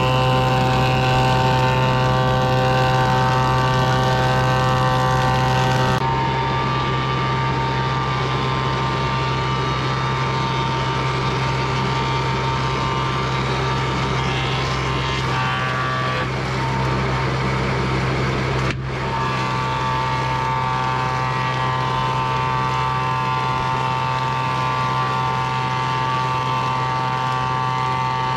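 Electric woodworking power tool's motor running steadily with a hum and whine; its tone shifts abruptly about six seconds and about nineteen seconds in.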